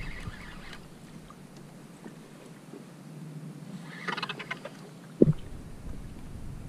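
Water lapping around a plastic sit-on kayak while a fishing reel is worked, with a short patch of rapid ticking about four seconds in. A single sharp knock just after five seconds in is the loudest sound.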